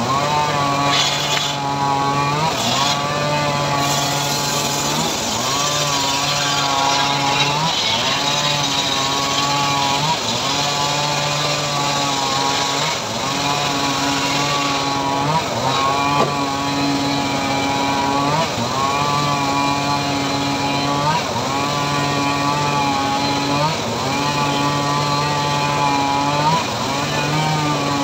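Homemade engine-driven circular sawmill ripping a mahogany log. The motor's pitch dips and recovers about every two and a half seconds as it loads up in the cut.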